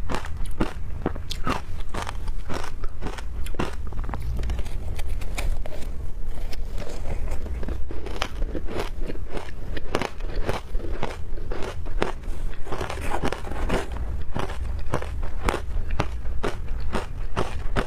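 A person biting and chewing ice: a steady run of sharp, crackly crunches, about two to three a second.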